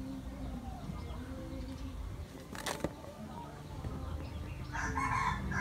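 A chicken calls near the end over faint background, with one sharp tap about two and a half seconds in.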